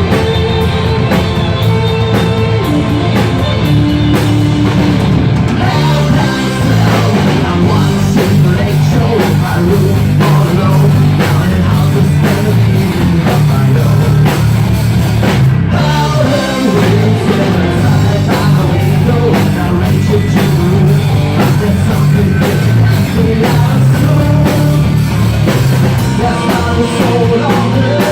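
Live rock band playing loudly, with drums, guitar and vocals, with a brief break about halfway through.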